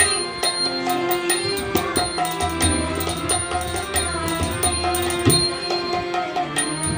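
Tabla playing a rhythmic accompaniment, sharp strokes on the small drum with deep ringing bass strokes on the bayan, over the held notes of a harmonium.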